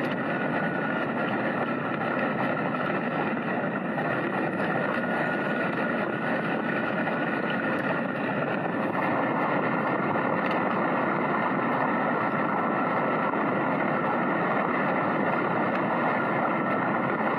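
A motor vehicle driving at a steady speed: constant engine and rolling noise with a faint steady whine, slightly louder from about nine seconds in.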